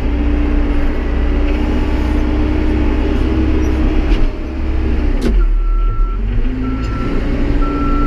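Tractor backhoe-loader engine running steadily under work, with a couple of knocks and a dip in the engine note about five seconds in. A reversing beeper then starts, one high beep about every second, as the machine is put in reverse.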